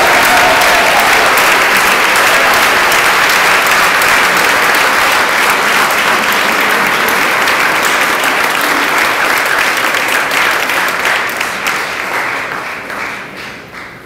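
A large audience applauding, a long ovation of many hands clapping that thins out and dies away over the last couple of seconds.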